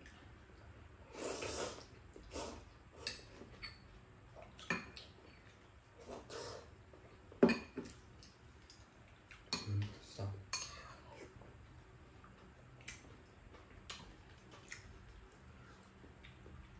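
Eating at the table: noodles slurped and chewed, with a metal spoon and chopsticks clinking against bowls and the hotpot pan in scattered short knocks, the sharpest clink about halfway through.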